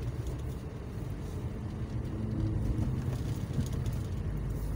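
Steady low rumble of wind and a motorcycle engine while riding along a road in traffic.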